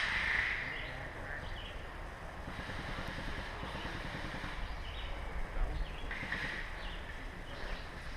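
Outdoor ambience: a steady low rumble of wind on the microphone, with short falling chirps of birds repeating every second or so.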